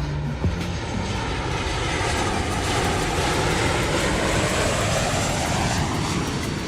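Rushing engine noise of an aircraft passing overhead, swelling through the middle and easing near the end. Faint music sits beneath it at the start.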